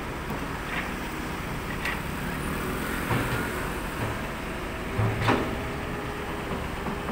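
Tracked excavator's diesel engine running steadily while its bucket digs into a pile of rocks, with several clunks and scrapes of stone, the loudest about five seconds in.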